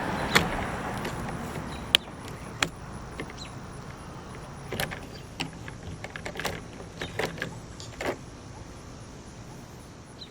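Scattered sharp clicks and knocks of plastic clips, trim and hand tools as the sunroof wind deflector is worked on, with a steady noise fading out in the first two seconds.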